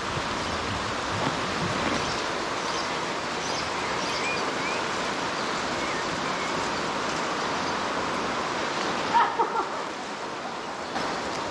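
Steady outdoor ambient noise, an even rushing hiss, with a few faint high chirps and a short louder pitched call about nine seconds in.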